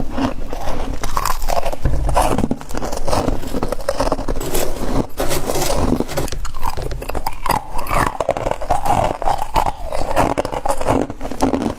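A person chewing a mouthful of humidifier frost close to the microphone: continuous crunching and biting with many small snaps.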